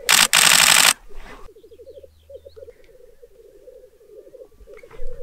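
Male black grouse bubbling at the lek: a continuous low, rapidly pulsing warble. The first second is drowned by a loud burst of hissing noise.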